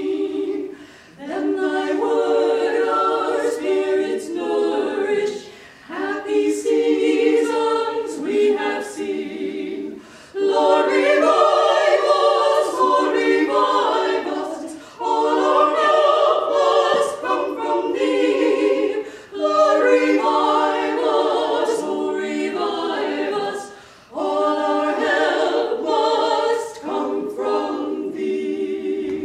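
A women's vocal quartet singing unaccompanied in harmony, in phrases of a few seconds each with short breaks between them.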